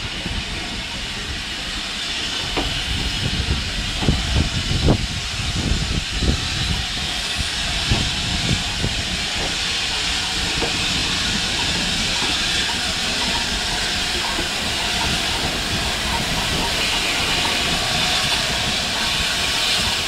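Steam hissing from LNER A4 Pacific locomotive 4464 'Bittern' as the train rolls slowly past at low speed, growing louder as the engine draws near. Irregular knocks and clanks from the passing coaches' wheels come through over the first several seconds.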